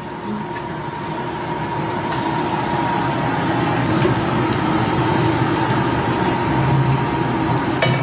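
Steady mechanical hum and hiss, like a motor or fan running, with a thin steady tone above it; it grows slightly louder over the first few seconds.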